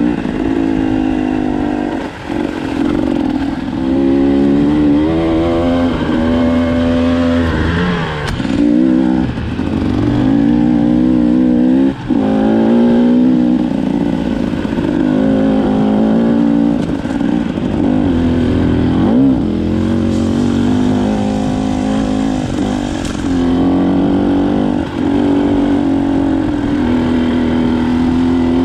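Enduro motorcycle engine being ridden off-road, its pitch rising and falling again and again as the throttle opens and closes, with a few sharp knocks along the way.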